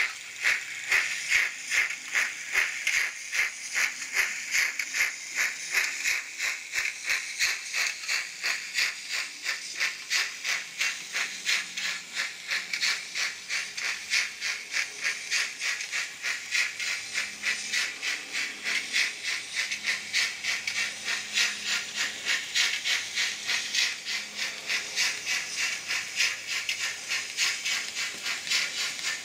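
N-scale model train, an Arnold BR 18 steam locomotive hauling Hobbytrain Rheingold coaches, running past: a steady rhythmic hissing rattle, pulsing a few times a second.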